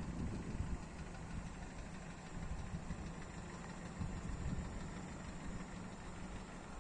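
Wind buffeting a phone's microphone: an uneven low rumble that rises and falls.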